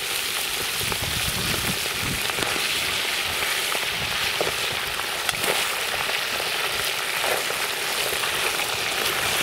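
Small whole fish deep-frying in hot oil in a cast-iron kazan: a steady sizzle, with a few light clicks from the middle on as a metal skimmer is worked through the oil.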